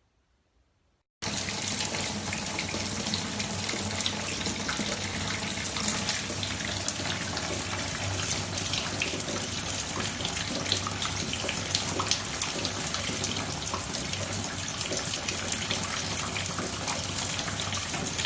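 Steady rush of running water, starting abruptly about a second in, with small scattered ticks.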